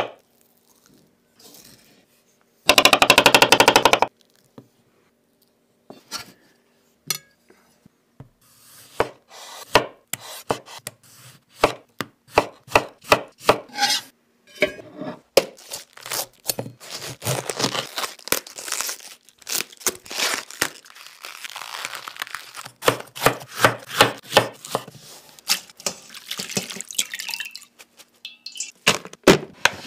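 Kitchen knife slicing avocado and tomato on a bamboo cutting board, heard as a series of sharp strokes of the blade against the board. About three seconds in there is a loud run of very fast strokes lasting about a second and a half; the strokes then come sparsely before settling into a long run of separate slices, sometimes in quick bursts.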